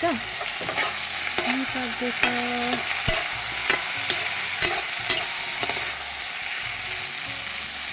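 Vegetables sizzling as they fry in a pan, stirred with a utensil that taps and scrapes against the pan about twice a second. The tapping stops a little before six seconds in while the sizzling goes on.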